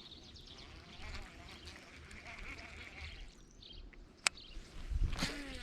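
Faint outdoor ambience with high bird calls, a single sharp click about four seconds in, and a brief louder call near the end.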